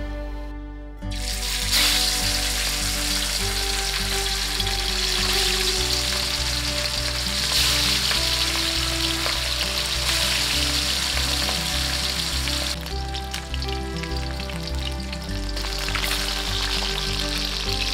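Pieces of rohu fish sizzling as they fry in hot oil in a wok, the sizzle starting suddenly about a second in, with a spatula stirring and turning them near the end. Background music plays underneath.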